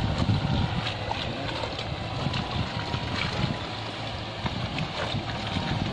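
Steady low rumble aboard a wooden fishing boat, with water sloshing against the hull and wind on the microphone.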